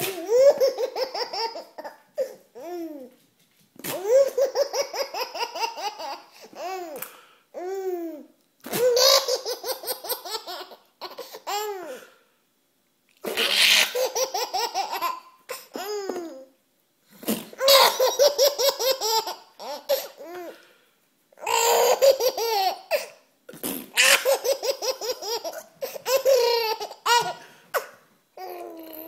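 Seven-month-old baby laughing hard in repeated bouts. Each bout is a run of quick pulsing laughs lasting a second or few, with short breaks for breath in between.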